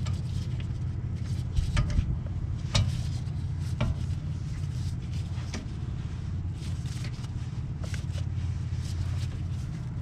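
Scattered sharp metallic clicks and scrapes from a brake caliper piston compression tool being twisted to wind a rear caliper piston back in, over a steady low rumble like passing traffic.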